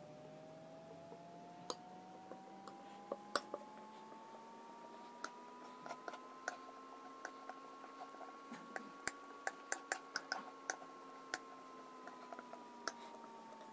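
Metal spoon pressing and scraping through crumbly clay on a hard surface: irregular sharp clicks and crackles, thickest in the middle. Underneath is a faint steady tone that slowly rises and then falls in pitch.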